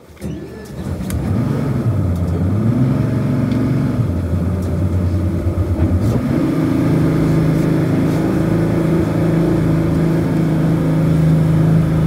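Jet boat engine running, its pitch rising and falling over the first few seconds, then stepping up about halfway through to a higher, steady speed.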